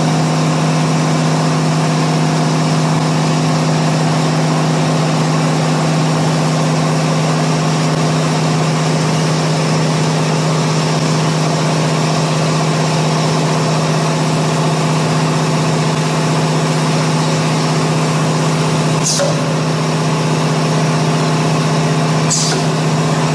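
Automatic-tool-change CNC router running with a steady, even hum during its automatic tool-length measurement. Two short hisses come near the end.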